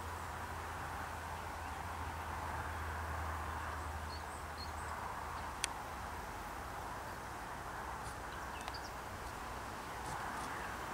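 Steady outdoor field ambience: an even hiss, with a low rumble that fades out about halfway. A few faint, short, high bird chirps and two or three sharp clicks sound over it.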